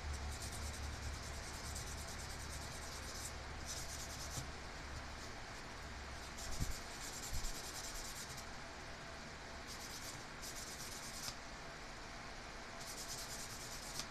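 A thin metal horn-switch contact piece rubbed back and forth on fine sandpaper to clean its contact surface. The scratchy strokes come in bouts of a second or a few seconds, with short pauses between them. Two light knocks sound about halfway through.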